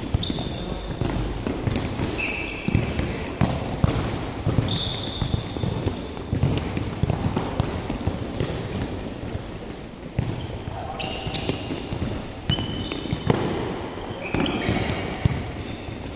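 A futsal ball being kicked, trapped and bouncing on a hard indoor court, with trainers squeaking briefly on the floor many times.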